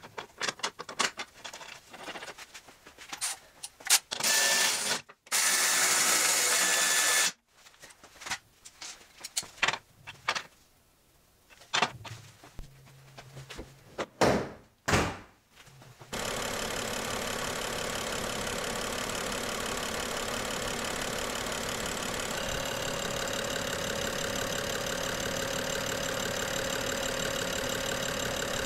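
Sharp clicks and knocks of parts being fitted back on, with a few seconds of loud steady mechanical noise about a quarter of the way in. From about halfway through, the BMW N55 turbocharged inline-six idles steadily. This is with new Vanos solenoids fitted; the owner finds the idle improved but still with a slight hint of a miss.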